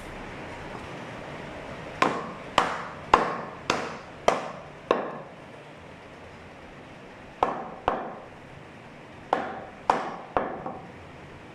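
Heavy meat cleaver chopping through a goat's rib rack on a round wooden chopping block. It lands six sharp chops about every half-second, then two more, then three or four more near the end.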